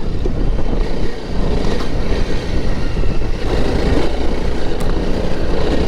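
Honda CRF300L Rally's single-cylinder engine running steadily as the dual-sport motorcycle is ridden along a dirt trail, with a rough rushing noise over it.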